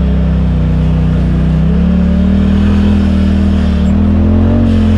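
Polaris RZR side-by-side engine running under throttle on a dirt trail, its pitch rising about two seconds in and again near the end as the machine picks up speed.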